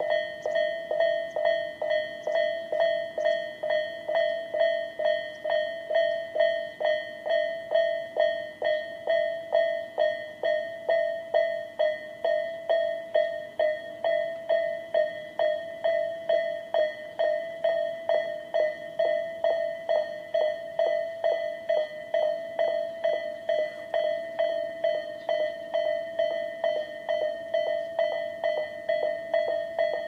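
Electronic railway level-crossing warning bells of the Tobu 'sound A' type, sounding from the sounders on both sides of the crossing. They ring a steady, rapid, evenly repeating ding, about two to three strokes a second, warning that a train is approaching with the barriers lowered.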